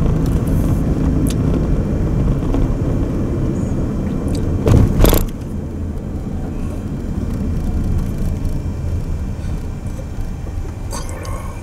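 Car driving, heard from inside the cabin: steady low road and engine rumble, with a short loud noise about five seconds in.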